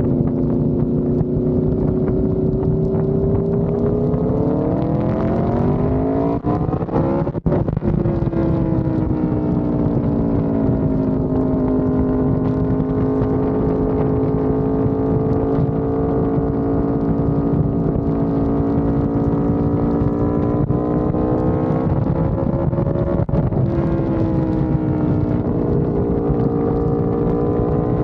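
2019 Aprilia RSV4 1100 Factory's V4 engine through a Racefit exhaust, ridden on the road. The revs climb for a few seconds, break with a quick upshift about seven seconds in, then hold steady, dipping and climbing again later on.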